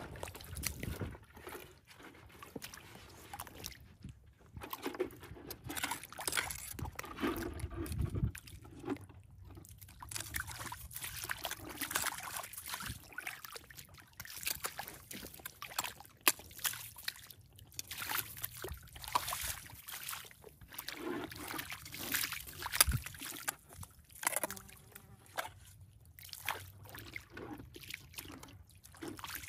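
Wet squelching and sloshing of feet moving through soft tidal mud and shallow water, mixed with a long-handled metal crab hook being jabbed and dragged through the mud. Irregular splashes, sucks and scrapes come one after another.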